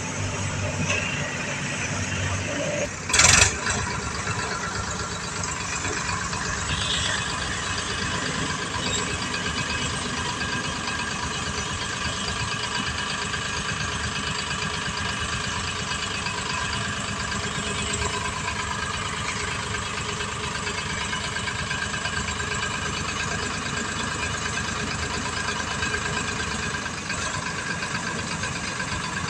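Diesel engines of a Powertrac Euro 50 tractor and a JCB backhoe loader running steadily. A brief loud burst cuts through about three seconds in.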